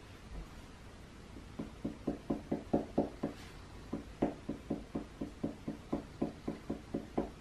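Water-based marker tip tapping quickly on paper laid on a wooden table, stippling dots: a rapid run of light taps at about five a second, starting about a second and a half in, with a short break near the middle.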